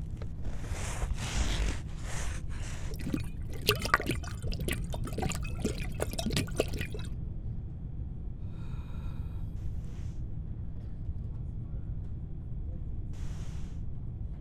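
Improvised sci-fi sound effects made with everyday objects. Breathy hissing bursts give way to a dense run of rapid clicks and crackles, then a few quieter sounds: a short pitched tone and two brief hisses.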